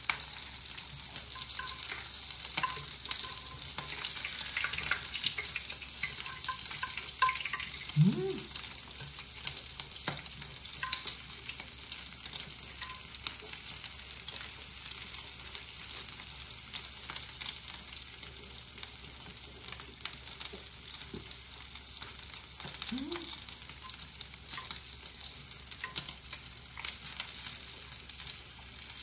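Pork belly sizzling on a tabletop grill pan: a steady frying hiss with frequent small pops and crackles. Twice, about 8 seconds in and again near 23 seconds, a short rising hum comes from the man chewing.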